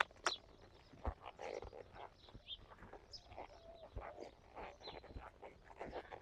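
Faint sounds of a horse walking under a rider: a few soft hoof thuds and small clicks of tack, with brief bird chirps.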